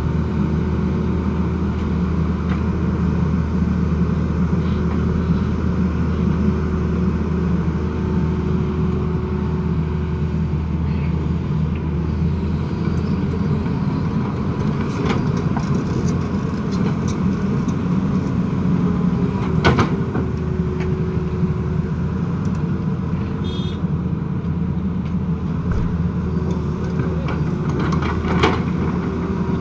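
Tata Hitachi hydraulic excavator's diesel engine running steadily under digging load, its low hum dropping away about twelve seconds in. A few sharp knocks of the bucket on soil and rock, the loudest about two-thirds of the way through and a cluster near the end.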